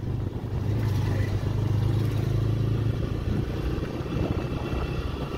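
Motorcycle engine running at a steady cruising speed while riding, a low even drone with road and wind noise over it.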